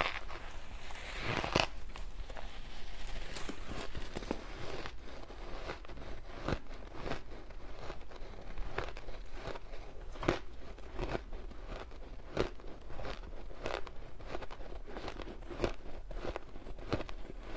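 Shaved ice crunching as it is bitten and chewed, close-miked for ASMR. A dense run of crunching in the first two seconds, then a steady string of small, irregular crisp crunches.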